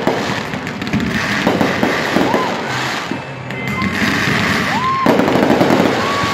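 Fireworks show going off in rapid, overlapping bangs and crackles.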